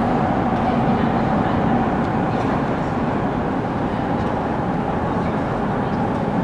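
Steady rumble of a metro train running out of sight in the tunnels of an underground station.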